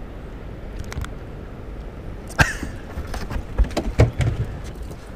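Knocks and taps on an aluminum jon boat deck: one sharp knock about two and a half seconds in, then a quick run of lighter knocks and taps as a dog walks across the deck.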